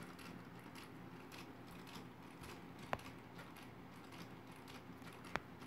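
Quiet room tone with a faint low hum, broken by two short clicks, one about three seconds in and one near the end.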